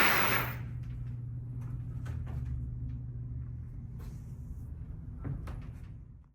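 A loud bang right at the start that fades over about half a second, followed by a steady low hum with a few faint knocks, the last one a little over five seconds in.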